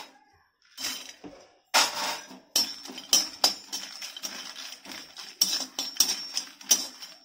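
Perforated metal ladle scraping and clinking against a kadai while buttermilk-dried chillies are stirred and dry-roasted in it; it starts after about a second and a half of quiet and goes on as a quick, irregular run of sharp scrapes and knocks.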